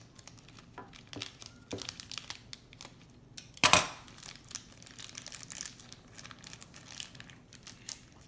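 Plastic toy packaging being crinkled and handled, many small crackles, with one loud rip or crumple a little over three and a half seconds in as the pack is torn open.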